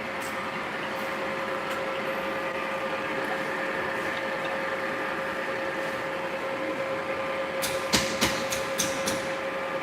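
A machine running with a steady hum and a constant whine, with a quick run of sharp metallic clicks or knocks about eight seconds in.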